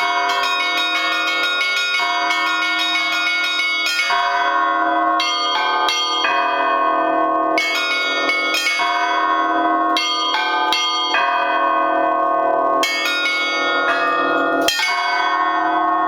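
Russian Orthodox peal (trezvon) in Yaroslavl style on eight hand-rung church bells in a 6/8 rhythm; the bells come from the Lavrov, Olovyanishnikov and Shuvalov foundries, several of them damaged. Quick, dense strikes for about the first four seconds, then sparser strikes with the bells ringing on between them.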